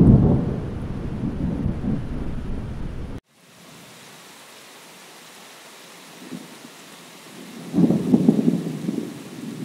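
Rain with rumbling thunder: a long rumble cuts off suddenly about three seconds in, leaving a steady rain hiss, and a second shorter rumble of thunder comes near the end.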